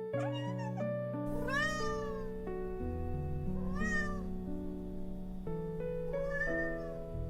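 A cat meowing four times, each an arched rise and fall in pitch, the second the longest, over background music of held notes.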